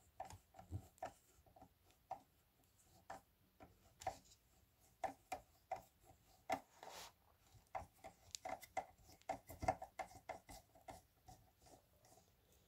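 Faint, irregular clicks and taps of hands handling and working on a Sony speaker cabinet being taken apart, many with a short hollow ring, and one brief scrape a little past the middle.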